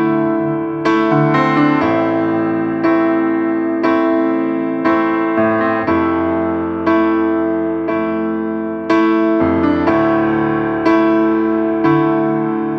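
Slow background piano music: chords and notes struck every one to two seconds, each ringing and slowly fading.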